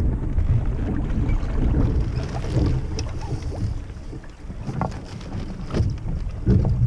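Wind buffeting the microphone aboard a Sprint 15 catamaran under sail, with water noise beneath it and a few light knocks. The wind eases about four seconds in, then picks up again near the end.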